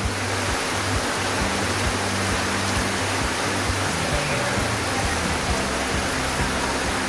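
Heavy rain falling steadily, a dense even hiss, with background music's low held notes underneath.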